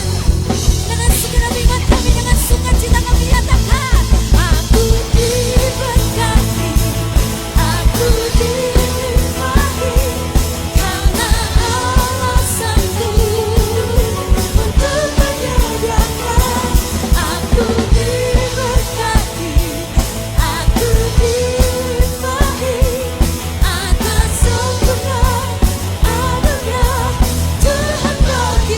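Live worship band playing an upbeat praise song with a steady drum-kit beat, bass and keyboard, with voices singing the melody.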